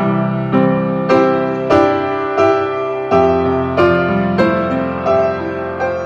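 Background piano music: a steady run of notes struck about every two-thirds of a second, each ringing and fading before the next.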